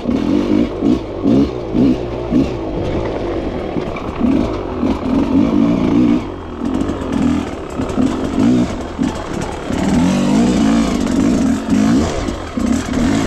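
Dirt bike engine revving up and down, the throttle opened and closed again and again so the pitch keeps rising and falling.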